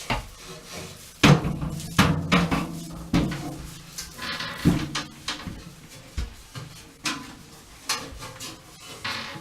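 Irregular knocks and clunks of parts being handled and set in place, with a scraping rub in the middle. The loudest knocks come about a second in and around two seconds.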